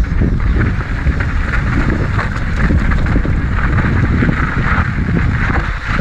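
Wind buffeting the microphone while an Ibis Mojo HD4 mountain bike rolls fast down a dirt trail, its tyres crunching and the bike rattling over bumps in a steady stream of small knocks.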